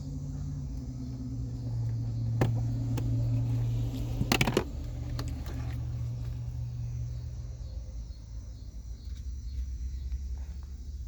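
Plastic clicks and snaps from the cabin air filter cover behind the glove box being worked free: a single click about two and a half seconds in, then a louder cluster of clicks about four and a half seconds in. A low steady hum runs underneath.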